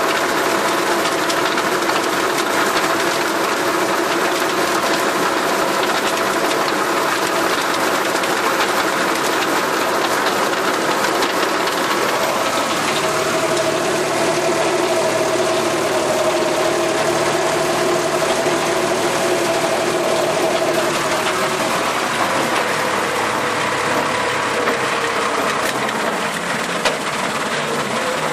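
Massey Ferguson 275 4x4 tractor's diesel engine running steadily under load, driving a rear rotary tiller through the soil. A steady tone in the drone grows stronger for several seconds midway, then eases off.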